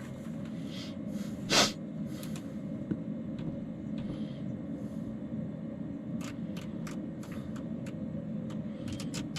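Steady low hum in the cockpit of a TBM 910 on the ground before engine start. A short breathy burst comes about one and a half seconds in, and a run of light clicks starts about six seconds in.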